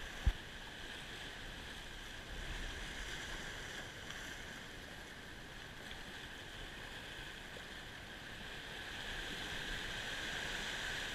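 Sea surf washing over rocky shore ledges: a steady hiss that swells twice, with a low wind rumble on the microphone. A single sharp click sounds just after the start.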